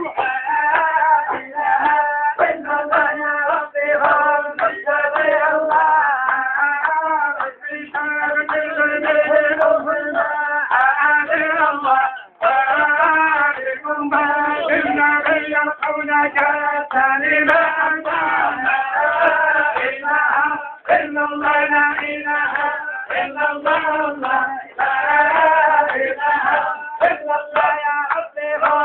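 A group of men singing a chant together, phrase after phrase, with a few brief breaks between phrases.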